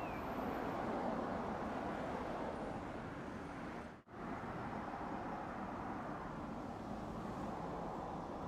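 Steady running noise of a moving vehicle, an even rumble with no distinct events, broken by a very short dropout about four seconds in.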